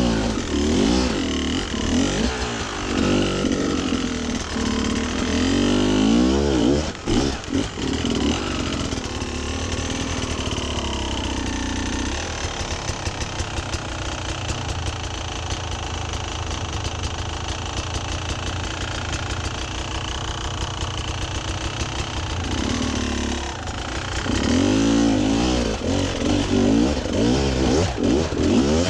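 Beta enduro motorcycle engine revving up and down in quick blips under load on a rocky climb, settles to steady running for about ten seconds near the middle, then revs in short blips again near the end.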